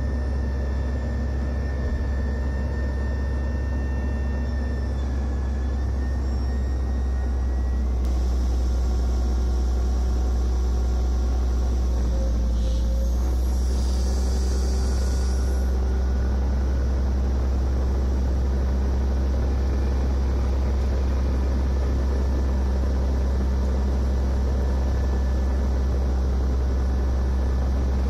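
Diesel engine of a Caterpillar 375L excavator running steadily, heard from inside the cab as a deep, even rumble with a strong low hum. It gets a little louder about a third of the way through.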